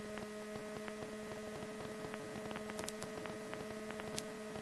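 Faint steady electrical hum, made of a few steady tones, with scattered light clicks and crackle of static.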